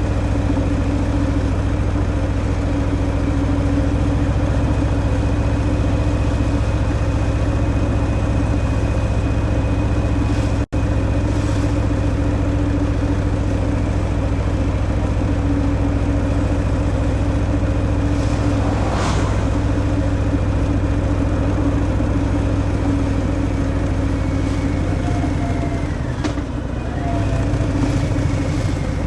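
Harley-Davidson Fat Boy's Milwaukee-Eight 114 V-twin engine running through its stock exhaust, cruising at a steady speed. The sound cuts out for an instant about eleven seconds in, and the engine note dips briefly near the end.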